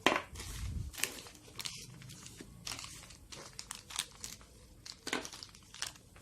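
Packaging crinkling and rustling as it is handled, with irregular light clicks and crackles.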